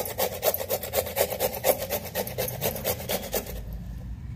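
Bottle gourd grated by hand on a flat metal grater: a quick, even rasping of back-and-forth strokes, about five a second, that stops about three and a half seconds in.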